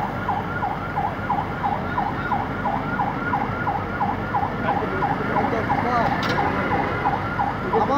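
Emergency vehicle siren on a fast yelp, its pitch sweeping up and down about three times a second without a break.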